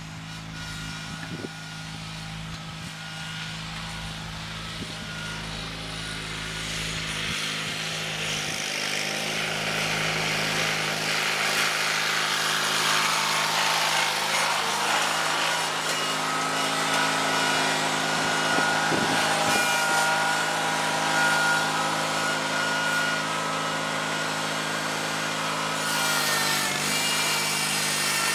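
John Deere 316 garden tractor's twin-cylinder engine running steadily under load as it pulls a Brinly moldboard plow through the soil. It grows louder as the tractor draws near.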